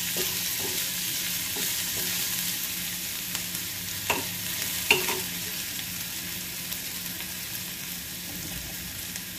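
Chopped onion frying in hot oil in a pan, a steady sizzle, while a steel ladle stirs it. Two sharp clinks of the ladle on the pan about four and five seconds in. The onion is being fried until it turns pink.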